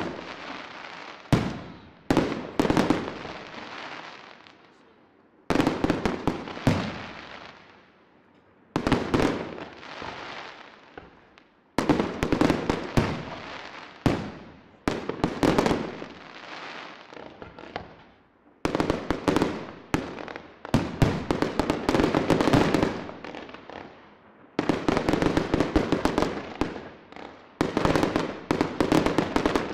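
Fireworks display: about ten salvos of aerial shells bursting in quick runs of sharp bangs. Each salvo is followed by a long echo that dies away before the next.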